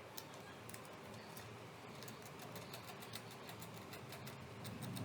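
Small irregular clicks and ticks of hands working on a small connector and its wires, over a faint steady hiss; the clicks come more often in the second half.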